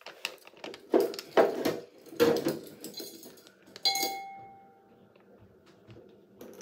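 Large plastic zip-top bag crinkling and rustling as it is handled, in several short bursts. About four seconds in, a hard clink rings briefly.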